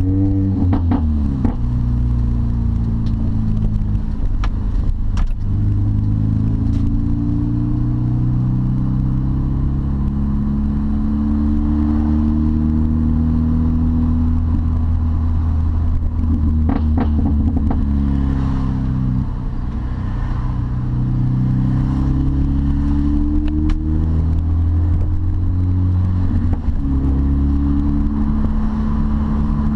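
Supercharged 1.6-litre four-cylinder engine of a Mini Cooper S (R53) with a straight-piped exhaust, heard from inside the cabin while driving through the gears of its manual transmission. The engine note climbs under acceleration and drops at each gear change, a few times, with a stretch of steady cruising in between.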